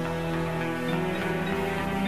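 Dark ambient black metal music: sustained synthesizer chords held without drums, the low notes changing about halfway through.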